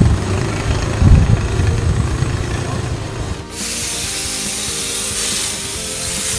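A low rumble, then about three and a half seconds in an air spray gun opens with a sudden steady hiss of compressed air as it sprays a thick cement-and-Flexibond texture coat.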